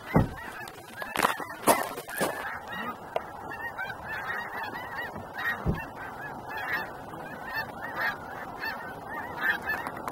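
A huge flock of snow geese honking in a dense, unbroken chorus. A few sharp knocks stand out in the first two seconds.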